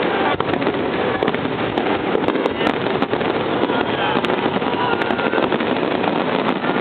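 Starmine fireworks barrage: a dense, unbroken mass of bangs and crackle with scattered sharp cracks, holding at a steady loudness throughout.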